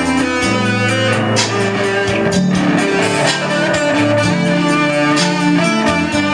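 Music with guitar and bowed strings: held bass notes under a steady melody.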